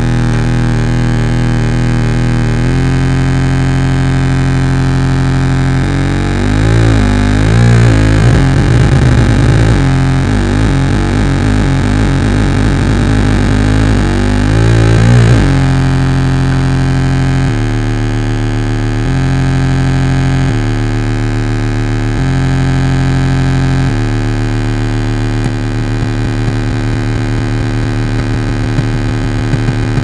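Homemade 555-timer and 4093-chip tone generator putting out dense, buzzing electronic tones. It pulses rapidly at first, warbles up and down in pitch through the middle, then steps between tones about every second and a half before breaking into a fast flutter near the end.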